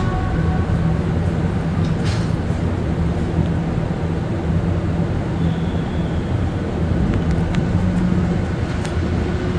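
Montréal Métro MR-73 train running between stations, heard from inside the car: a steady low rumble of rubber tyres and traction motors, with a brief higher rush about two seconds in.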